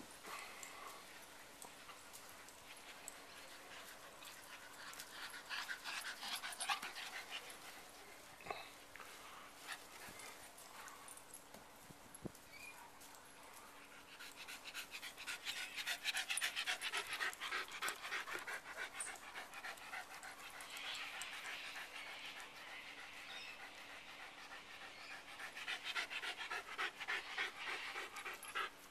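A dog panting rapidly, in several stretches of a few seconds each, out of breath from running and play-fighting.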